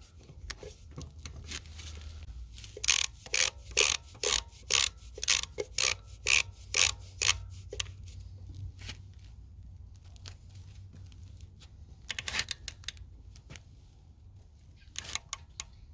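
DeWalt click-type torque wrench ratcheting as truck lug nuts are tightened to 130 foot-pounds: a run of sharp ratchet clicks about two a second, then quicker bursts of clicks near the end.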